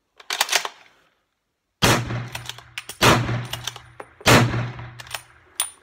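Remington 700 bolt-action rifle in .270 Winchester: a clatter of the bolt chambering a round, then three loud shots about a second and a quarter apart, with the bolt clicking as it is worked between shots. Rapid fire with bolt-action cycling.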